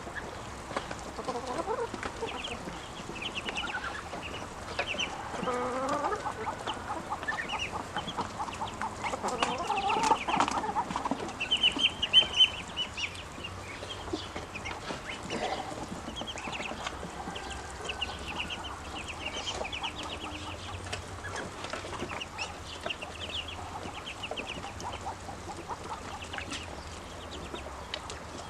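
Ducklings peeping in many short, high chirps over and over, with some louder, lower calls mixed in between about five and twelve seconds in.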